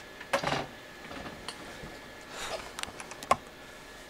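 Handling noises from computer parts being moved about on a desk: a few brief rustles and small clicks, the sharpest click about three seconds in.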